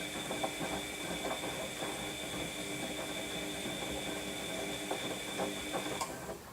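Washing machine running through its wash cycle: the drum motor whines steadily under irregular knocks, then the motor stops abruptly near the end.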